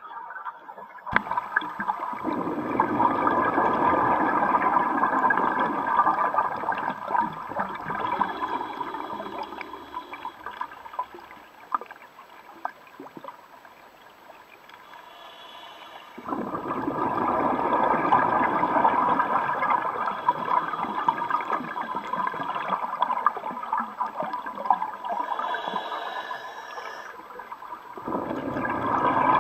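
Scuba diver's exhaled bubbles gurgling from the regulator underwater. Two long bursts of bubbling fade out with a quieter pause between them, and another burst starts near the end.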